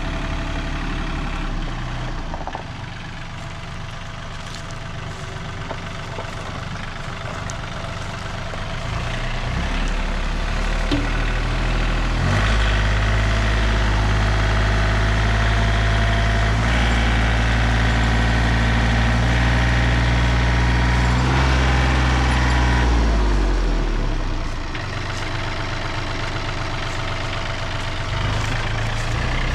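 Engine of the machine moving the log, running steadily. It revs up about ten seconds in, holds high revs for about ten seconds, then drops back toward idle.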